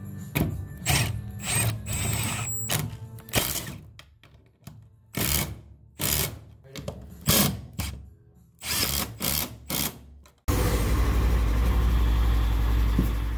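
Milwaukee M18 cordless impact driver driving bolts through thin sheet-metal wheel chocks into a wooden trailer deck, run in short separate bursts. Because the thin chocks bend easily, the driver is used carefully rather than run flat out. About ten seconds in, a louder continuous noise takes over.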